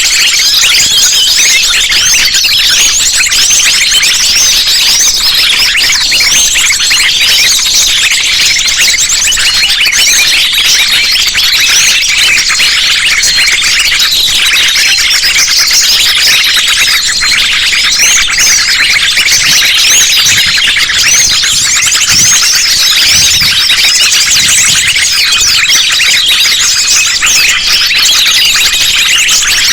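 Dense, unbroken chorus of many small birds such as sunbirds chirping and twittering at once, rapid high-pitched calls overlapping throughout: a mixed bird-trapping lure recording.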